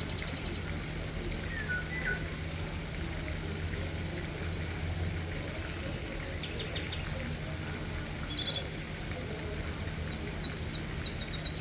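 Small birds calling over a steady low rush of flowing water: a falling whistle about two seconds in, quick clusters of high chirps in the middle and after eight seconds, and a few short notes near the end.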